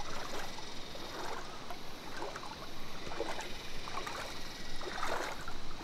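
Water splashing and sloshing in short, irregular bursts, as from people moving through water.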